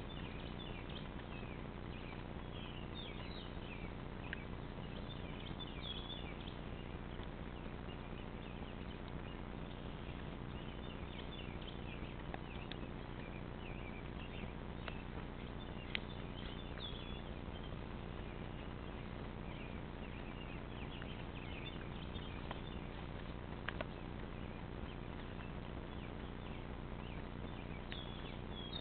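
A frog being eaten alive by a cat, giving short, high-pitched squeaking cries scattered irregularly, over a steady low hum.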